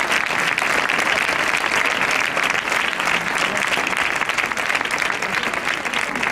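Crowd applauding steadily, a dense patter of many hands clapping.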